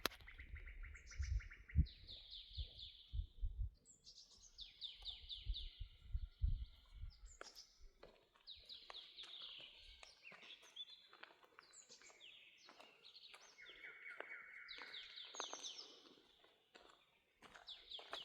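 A songbird singing a string of short, fast trilled phrases one after another, at moderate level. Dull low thumps sit under the song during the first seven seconds or so.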